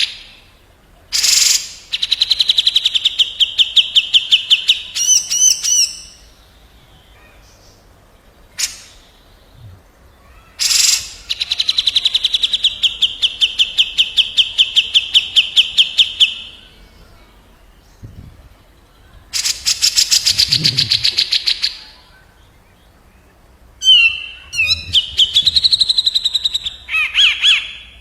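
Cucak jenggot (grey-cheeked bulbul) singing: loud bursts of very rapid, high rattling trills lasting a second or two up to about five seconds. Short sharp calls and brief pauses come between the bursts.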